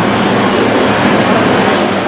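GE GEnx turbofan engines of a Boeing 787-10 airliner as it rolls along the runway: loud, steady jet noise.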